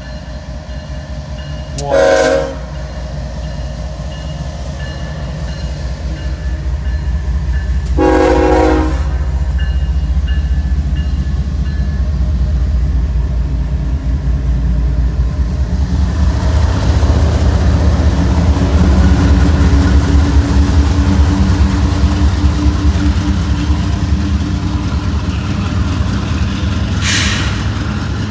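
CSX freight train's GE diesel locomotives sound their air horn twice, a short blast about two seconds in and a longer one about eight seconds in. The engines' low rumble and drone then grow much louder as the locomotives pass close by from about sixteen seconds. A short high-pitched noise comes near the end as the coal hoppers roll past.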